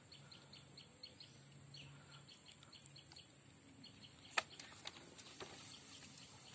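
Faint outdoor ambience of small birds chirping in short repeated calls, over a steady high hiss. A single sharp click sounds about four and a half seconds in.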